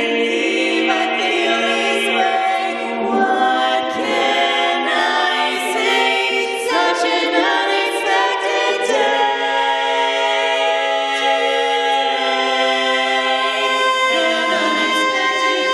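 A female a cappella quartet singing long held close-harmony chords that shift from one chord to the next every second or two, with no instruments.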